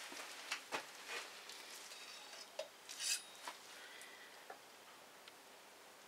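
Light metallic clicks and clinks from handling fork parts and a tape measure while checking the fork oil level. They are irregular and come thickest in the first few seconds, with the loudest clink about three seconds in, then thin out to a few faint ticks.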